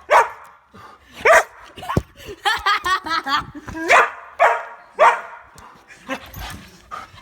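A dog barking repeatedly, with a quick run of short yips about two and a half seconds in. It is alert barking at a chipmunk it can see outside.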